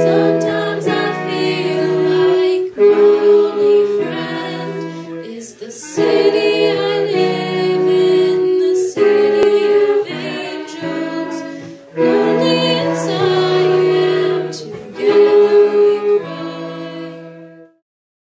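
A cappella singing: voices holding chords that change every second or two, in three phrases, fading out near the end.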